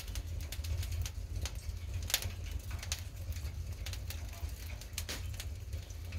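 Wood fire burning: irregular sharp crackles and pops over a low, steady rumble of the flames.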